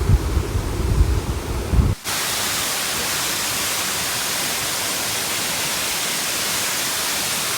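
About two seconds of low, gusty rumbling on the microphone. Then a sudden cut to the steady, even rush of a waterfall.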